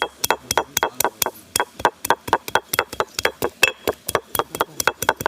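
Rapid, even chopping strikes on a cutting board, about six a second, each with a short bright ring.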